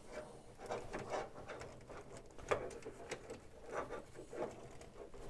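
Light plastic clicks and rustles from a Devil Saviour DS-04 Smash transforming figure as its panels are untabbed and swung on their hinges, with a few sharper clicks from about halfway through.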